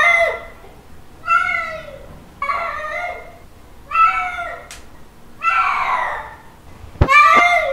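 A cat giving its mating call: about six drawn-out, yowling meows about a second and a half apart, each rising and then falling in pitch. A sharp click comes near the end.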